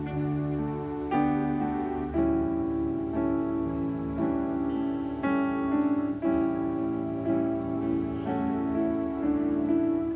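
Slow, soft keyboard music: sustained piano-like chords, a new chord struck about once a second.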